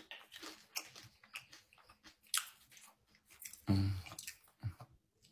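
A person chewing and biting food close to the microphone: small irregular wet clicks and crunches. A brief low hum from the eater comes nearly four seconds in.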